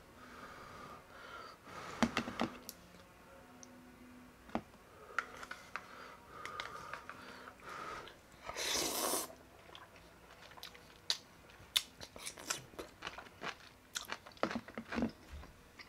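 Close-miked chewing and biting of ramen noodles in soup, with many short wet mouth clicks. A loud slurp of noodles comes about nine seconds in.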